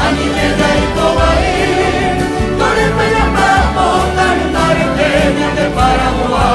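Voices singing a Paraguayan folk song together, accompanied by a philharmonic orchestra with a steady beat.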